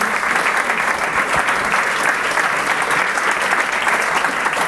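Audience applauding: many people clapping at once, at an even level.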